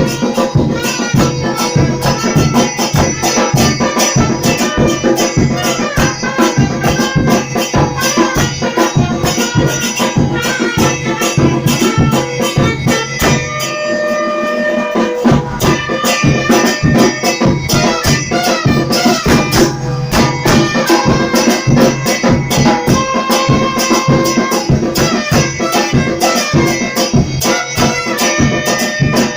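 Batucada percussion band playing a cumbia, a steady pulse of deep drum strokes under shakers and a melody line. About halfway through the low drums drop out for a moment, then come back in.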